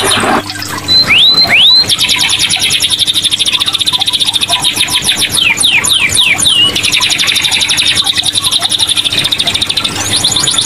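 Domestic canary in full, continuous song: a long run of fast trilled notes, with two quick rising whistles about a second in and a string of falling sweeps around the middle.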